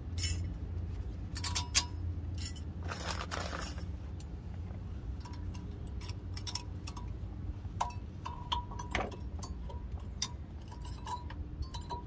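Metal brake-pad hardware clips being pried out of and snapped into a rear brake caliper bracket: scattered light metallic clicks and clinks, with a short scrape about three seconds in, over a low steady hum.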